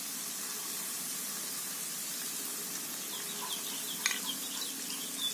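Ground green chillies frying in hot oil with sautéed shallots and garlic in a frying pan: a steady sizzling hiss. There is a light tap about four seconds in.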